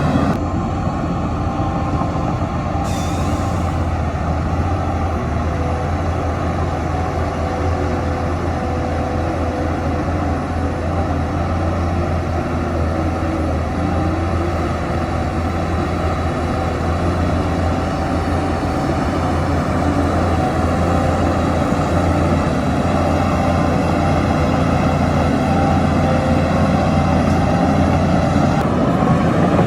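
Heavy construction-machine diesel engine running steadily, with a short hiss of air about three seconds in.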